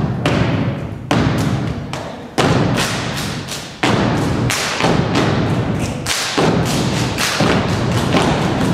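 A step team stepping in unison: stomps, claps and body slaps hitting together as sharp thuds, each ringing on in the hall. The beats come slowly at first, about one a second, then quicken to two or three a second from about halfway.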